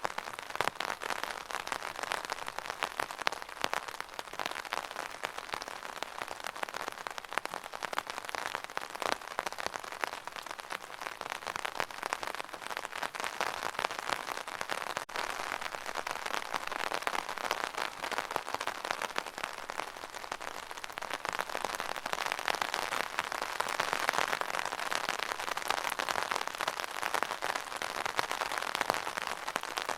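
Rain drumming on an umbrella canopy: a dense, steady patter of many small drops, a little heavier in the second half.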